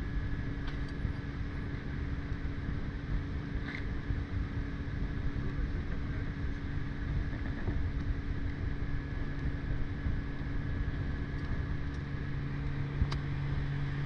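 Outboard motor of a rigid inflatable boat running steadily under way: a constant hum over the low rush of water and wind, which grows a little louder near the end. A few light clicks are heard.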